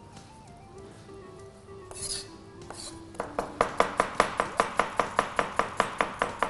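Kitchen knife slicing an onion on a cutting board: quick, even strokes at about five a second, starting about three seconds in after a brief rustle. Soft background music plays underneath.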